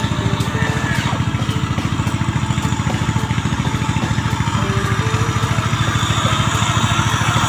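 Diesel truck engine sound running with a fast, even chug. A higher whine builds over the last couple of seconds.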